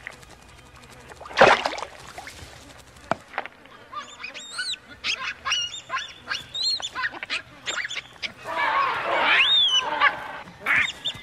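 A sudden loud crash about a second and a half in, then baboons screaming in alarm and distress as one is seized by a crocodile: repeated high, rising-and-falling cries that build into a dense burst of screams near the end.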